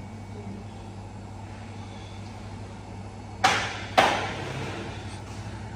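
Steady low hum of commercial kitchen equipment, broken by two sudden clattering sounds about half a second apart past the middle; the second is a sharp knock that dies away over about a second.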